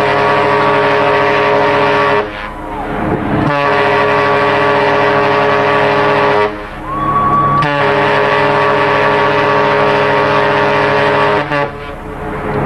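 Large ship's horn blowing long, loud blasts of about three seconds each, a deep steady tone, with short breaks between. A brief final blast comes near the end.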